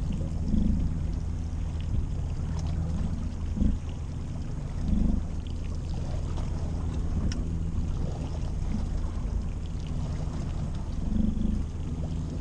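Small boat's engine idling steadily with a low hum, with a few short, louder low sounds over it.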